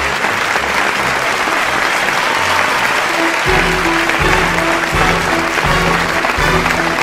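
Applause, a steady dense clapping, over music for the ballet's bows. A low pulsing bass line enters in the music about three and a half seconds in.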